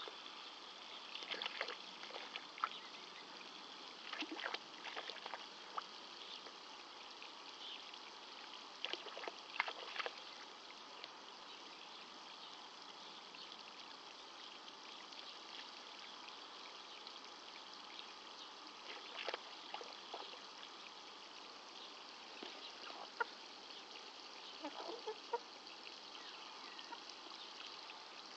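Garden hose spray nozzle spraying a steady jet of water onto bare soil, a continuous hiss. A few brief, sudden sounds come here and there, the loudest about ten seconds in.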